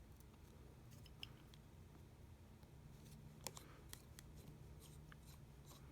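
Near silence over a steady low hum, broken by faint small clicks and taps of handling tiny phone parts and tools, with one sharper click about halfway and a run of soft ticks near the end.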